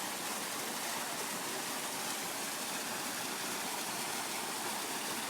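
Steady rush of falling water from a waterfall, an even hiss without breaks.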